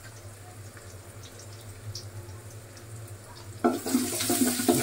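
Oil frying quietly in a cooking pot over a steady low hum. About three and a half seconds in, loud sizzling starts suddenly, with clatter, as marinated chicken goes into the hot oil with the fried onions and whole spices.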